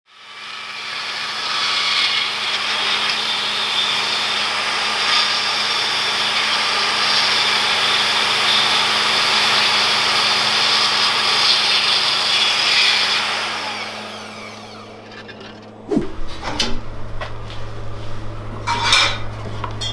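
Band saw cutting through aluminum diamond-plate sheet, a steady loud sawing that dies away after about fourteen seconds. Near the end come a few scattered clicks and knocks over a low hum.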